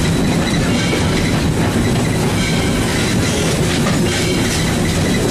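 Steady running noise of a Southern Railway 2-8-0 steam locomotive on the move, heard from inside its cab: the machinery's clatter and the wheels on the track.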